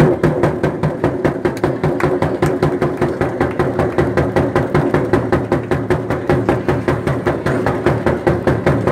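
An engine running steadily close by, with an even, rapid pulse of about five or six beats a second; it starts abruptly.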